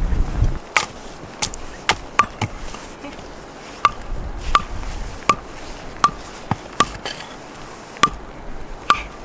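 About a dozen sharp metallic strikes at uneven intervals, many with a short bright ring: a hammer driving a steel tent peg.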